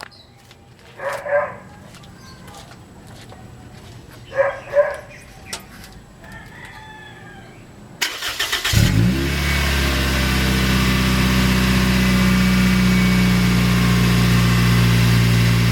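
Toyota Vios four-cylinder engine, already warm, started through an APEXi chambered muffler: it catches quickly about nine seconds in and settles into a steady idle. Before the start, two short animal calls are heard in the background.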